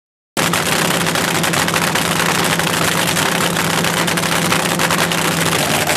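A car engine idling, a steady low hum under a loud, noisy rush, cutting in suddenly about a third of a second in after silence.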